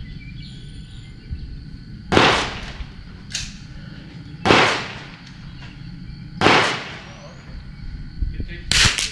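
CZ bolt-action .22 rimfire rifle firing SK Long Range match ammunition: three shots about two seconds apart, each with a short echo, then a shorter sharp crack near the end. Light wind noise throughout.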